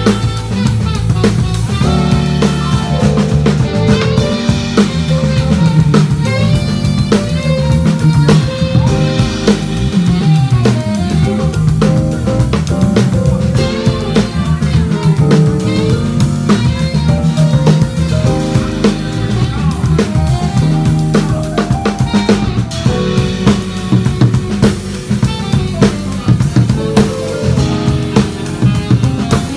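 Live band playing a funky groove: drum kit with kick, snare and rimshots over bass and other melodic instruments.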